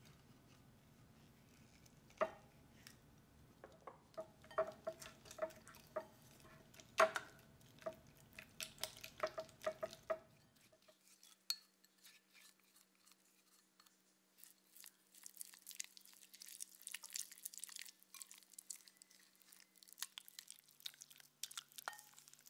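A silicone spatula and spoon knocking and scraping against a glass mixing bowl, with sharp clinks, several of which ring briefly, as yogurt is scraped in. From about halfway through, quieter fine wet crackling of the spatula stirring a thick butter-and-yogurt batter in the bowl.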